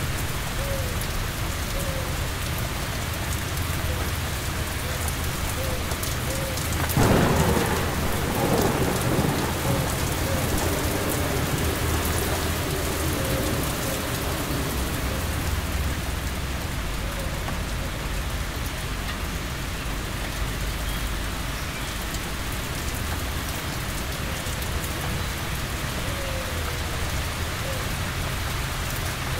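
Steady rain falling, with one thunderclap about seven seconds in that rumbles away over the next few seconds.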